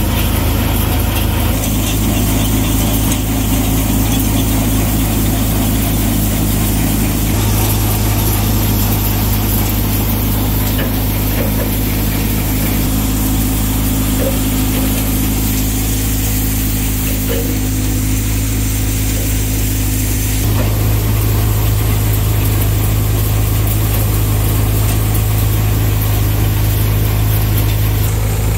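Tractor-driven Royal multicrop thresher running steadily at work. The engine's low drone blends with the noise of the thresher's drum and belts, and the hum shifts abruptly a few times.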